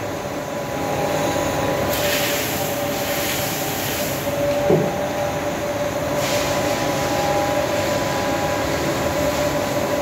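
Steel-bodied hydro extractor (centrifugal spin dryer) spinning a load of washed laundry, a steady motor whine over a rushing noise, with hissy surges about two and six seconds in. It is spinning the detergent water out of the load, which drains from its spout.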